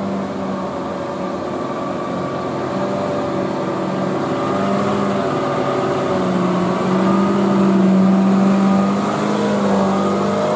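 Diesel engine of a heavily loaded Mitsubishi cargo truck pulling slowly uphill at low speed, a steady drone that grows louder about two-thirds of the way in as the truck passes close by, with a tour bus's engine following behind.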